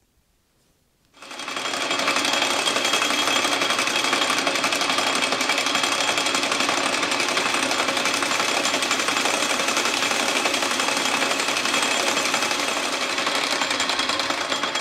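Metal lathe starting up about a second in and running steadily with its gear noise while a cutting tool turns a small steel stem held in a four-jaw chuck.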